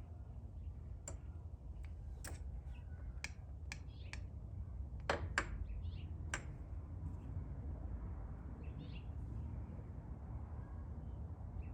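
Scattered metallic clicks and taps of hand tools and engine parts being handled during ATV top-end work, a few louder knocks about halfway through, over a low steady hum.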